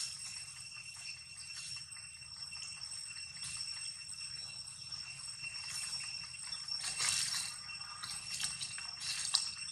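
A steady, high-pitched insect drone, with light rustles and clicks scattered through it. The loudest rustles come about seven seconds in and just before the end.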